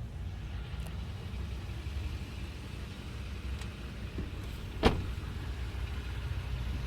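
Steady low rumble of the Tundra's 5.7-litre V8 idling, with one sharp click about five seconds in.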